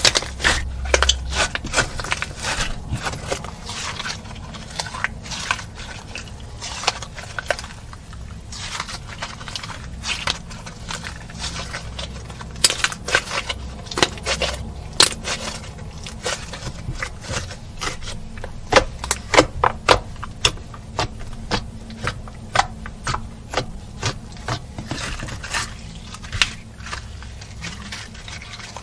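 Slime being kneaded and stretched by hand, with many sharp, irregular sticky clicks and pops as it squishes and pulls apart.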